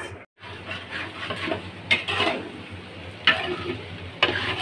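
A long metal spatula stirring and scraping pasta and string beans around a black wok, with a few sharp metal clanks of utensil against pan.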